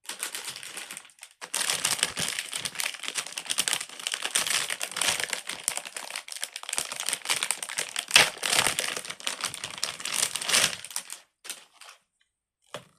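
Dense crinkling and rapid clicking as a plastic and silicone pop-it fidget spinner is handled, with a short break about a second in and a few stray clicks near the end.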